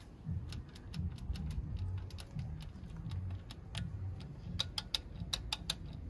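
Irregular light clicks and ticks, a cluster of them near the end, as the loose oil pump chain and its sprocket on a VW 1.2 TSI CBZA engine are moved by hand, over a low rumble. The slack in the chain is what let it rattle.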